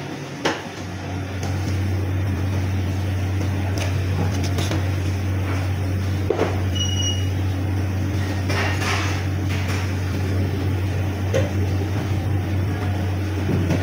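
A steady low mechanical hum, with scattered knocks and clatters over it and a short high beep about seven seconds in.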